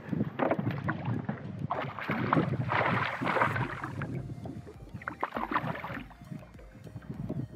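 Water sloshing and splashing around a small fishing boat, with scattered knocks, louder for a stretch about two to three and a half seconds in.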